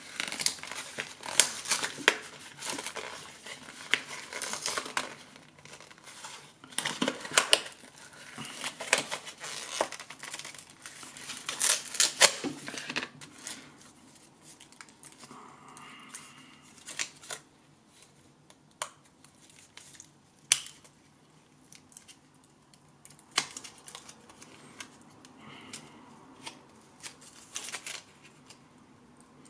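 Hands tearing open a microSD card's cardboard-and-plastic retail pack: dense irregular crinkling, crackling and tearing for about the first dozen seconds, then sparser clicks and rustles as the card is worked out of the pack.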